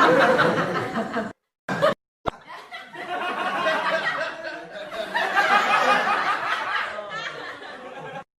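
Laughter sound effects played back to back: a burst of laughter that cuts off about a second in, a brief snippet, then a longer stretch of laughter of about six seconds that ends abruptly just before the end.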